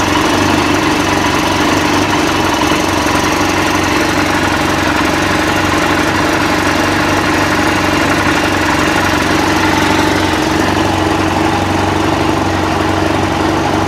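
Snowmobile engine idling steadily, an even unchanging drone.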